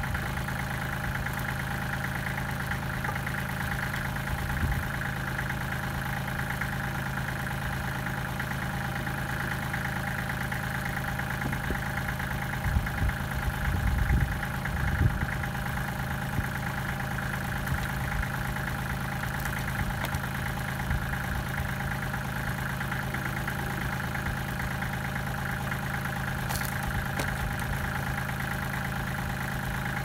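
Kubota L3400 tractor's three-cylinder diesel engine running steadily at idle, with a few low clunks about halfway through.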